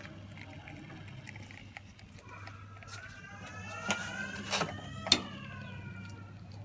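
Gaggia Orione lever espresso machine being worked: a squeaky tone that slowly falls in pitch and three sharp metallic clicks over a steady low hum.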